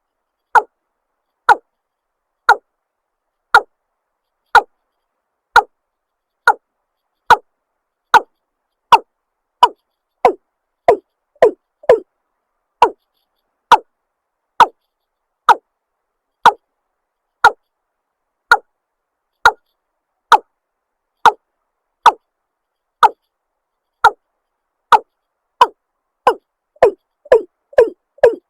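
Watercock calling: a steady series of short, hollow, downward-sliding 'kok' notes about one a second, quickening into closely spaced notes near the end.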